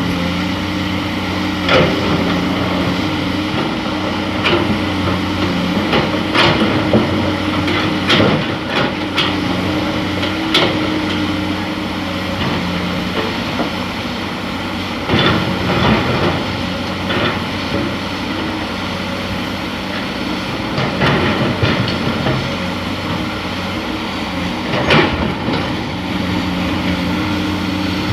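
Hydraulic excavator's diesel engine running steadily while it works, with repeated sharp clanks and knocks from the bucket and machinery as sand is loaded. The steady engine note changes partway through and comes back near the end.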